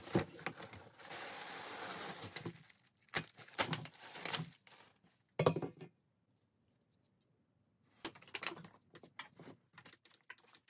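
Cardboard box sliding across a wooden desk top with a steady scraping rustle, then packaging being handled and plastic wrap crinkling as a metal desk frame is unwrapped, in short separate bursts with a pause in between.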